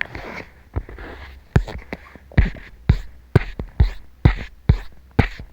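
A steady series of dull thumps, about two a second, beginning about a second and a half in, with a faint hiss between them.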